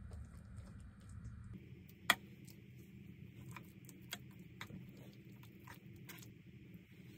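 A metal spoon clicking and tapping against the plates of an open electric waffle iron while soft batter is spooned on and spread, one sharp click about two seconds in and a few fainter taps after it, over a low steady hum.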